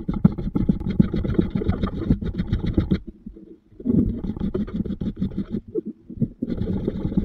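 A hand tool worked in rapid back-and-forth strokes across a wooden board. The strokes run for about three seconds, stop, then come in two shorter runs.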